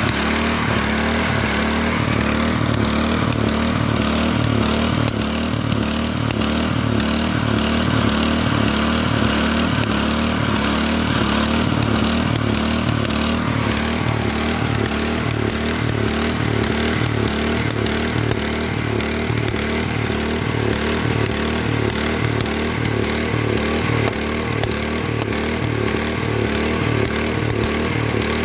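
Engine-driven rail grinding machine running steadily, its grinding stone cutting down a fresh rail weld. Its tone shifts slightly about halfway through.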